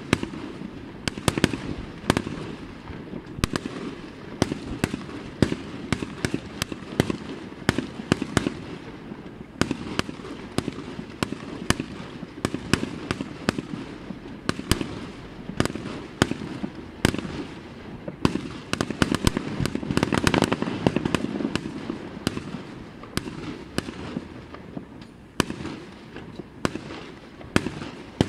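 Aerial fireworks display going off: a dense, irregular run of bangs and pops, several a second, heaviest about twenty seconds in.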